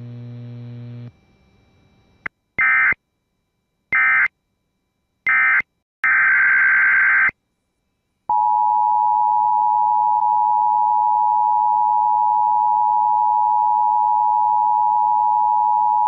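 Emergency Alert System tones. A low hum fades in the first second, then three short digital data bursts sound (the SAME end-of-message code closing the previous alert), followed by one longer data burst of the next alert's header. After a pause, the steady two-tone EAS attention signal sounds for about eight seconds and cuts off just at the end.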